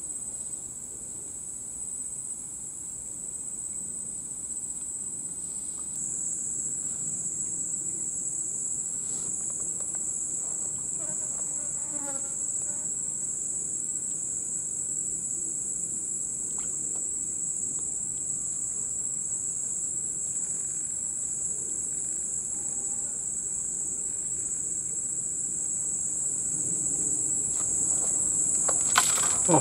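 Steady, high-pitched drone of a chorus of tropical insects. Near the end a few splashes come from the water as a hooked fish starts thrashing at the surface.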